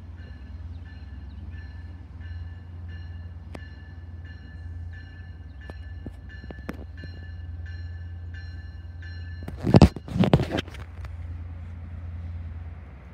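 Railroad grade-crossing warning bell ringing steadily, about one and a half strokes a second, over a low steady rumble as a diesel passenger train approaches. The bell stops about nine and a half seconds in, and two short, loud bursts follow.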